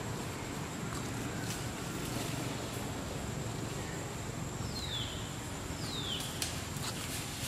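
Outdoor forest ambience with a steady low rumble and a thin, steady high whine, broken by two short, high animal calls that fall in pitch, about five and six seconds in.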